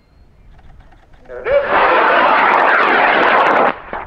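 High-power rocket motor firing: a loud rushing roar that starts abruptly about a second and a half in, holds steady, and stops abruptly about two seconds later.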